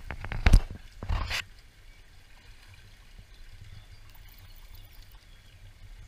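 A few sharp splashes and knocks of water in the first second and a half, then a small shallow stream trickling steadily.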